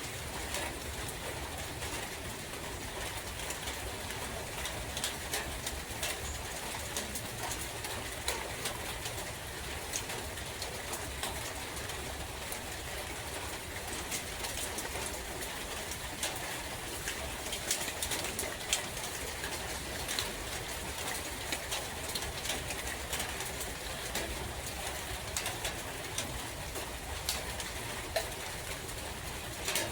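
Steady rain falling in a forest, with many drops ticking on leaves and other surfaces, and a dove cooing at times underneath.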